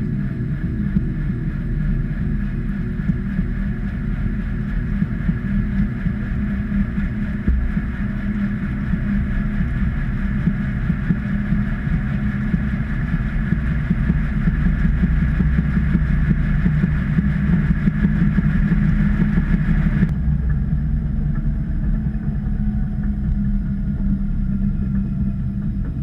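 Washing machine drum turning with a load of clothes, heard from inside the drum: a steady low rumble. About twenty seconds in, a higher hum drops away suddenly, leaving the rumble.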